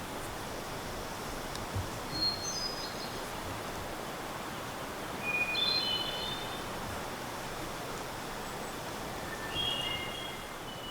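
A small songbird singing three short phrases, each a few brief high notes at stepping pitches, a few seconds apart, over steady outdoor background hiss.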